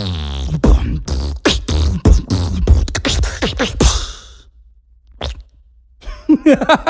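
Beatboxing: mouth-made sound effects, a rapid run of sharp clicks and short pitched bass hits for about four seconds, a single click a moment later, then a few quick falling pitched slides near the end.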